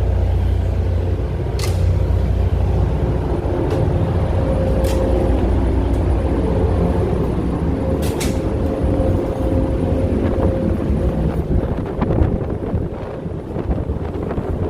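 Ferry's engines running with a steady low rumble, a few short clicks heard over it.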